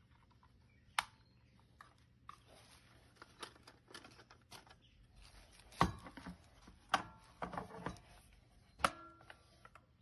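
Hard plastic parts of an OKP K8 robot vacuum's dust bin and filter being handled: scattered clicks and knocks, one sharp click about a second in and a louder run of knocks between about six and nine seconds, with light rustling in between.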